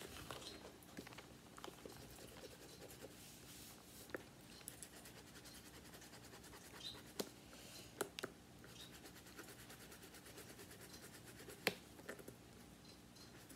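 Faint scratching and rubbing at a scratch-off card, with a few sharp clicks, the loudest near the end.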